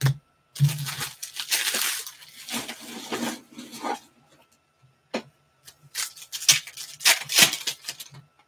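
Foil wrappers of Panini Select basketball card packs being torn open and crinkled by hand, in two spells of ripping and crackling with a short lull between them.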